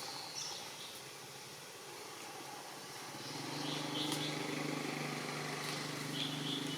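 A steady motor hum that sets in about three seconds in and holds, with a few faint high chirps over it.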